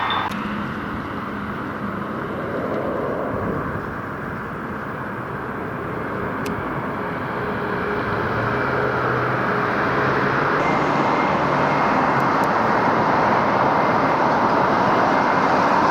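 Steady engine and wind noise of an aircraft in flight, growing gradually louder, with faint low hums that come and go.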